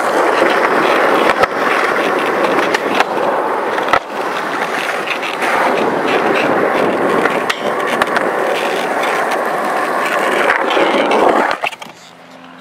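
Skateboard wheels rolling on smooth concrete, a loud, close, steady rumble with a few light knocks. The rolling stops abruptly near the end.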